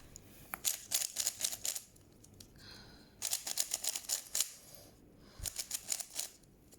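Plastic puzzle cube being turned quickly by hand: three flurries of rapid clicking from its layers snapping round, with short pauses between.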